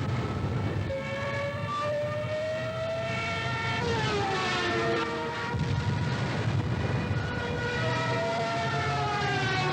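Propeller aircraft engines droning, with several tones gliding up and down in pitch as planes pass over.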